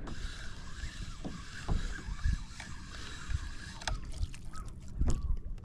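Water lapping against a kayak's hull, with wind buffeting the microphone and a few light knocks about four and five seconds in.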